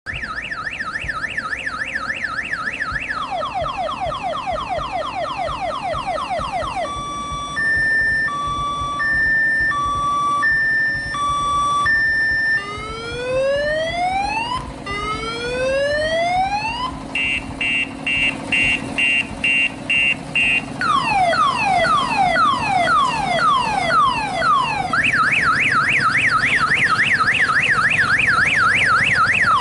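Odong-odong tourist road train's electronic siren cycling through its tones over a low steady hum. It starts with a fast yelp and sweeping wails. Then comes a two-tone hi-lo changing about once a second, a few slow rising sweeps, a rapid beep about twice a second, falling sweeps, and the fast yelp again near the end.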